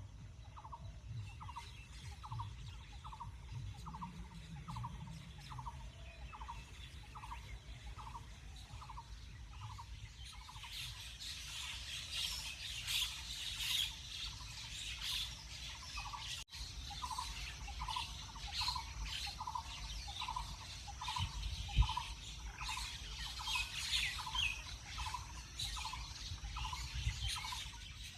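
Several birds calling in a morning chorus. One bird repeats a short mid-pitched note about twice a second, and from about ten seconds in a busy mix of high chirps and twitters joins it.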